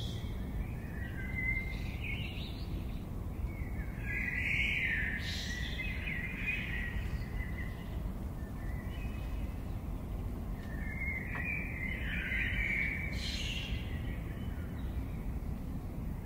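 Wild birds chirping and singing in woodland, in bursts of calls at about one to three seconds in, from about four to seven seconds, and again from about eleven to fourteen seconds, over a steady low background rumble.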